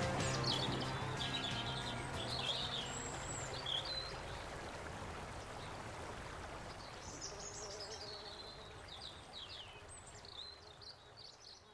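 Birds chirping and singing over a steady hiss, the whole fading out gradually. The last held notes of guitar music die away in the first couple of seconds.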